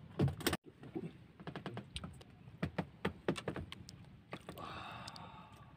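A quick, irregular run of sharp clicks and knocks from handling in a small wooden outrigger boat while a fishing line is hauled in by hand, then a short soft rushing noise near the end.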